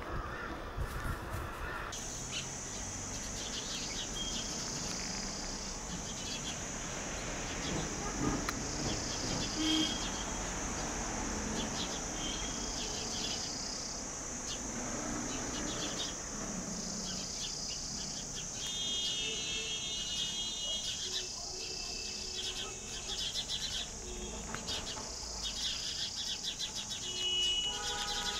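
Steady high-pitched insect trilling, setting in about two seconds in, with small birds chirping now and then and more busily near the end.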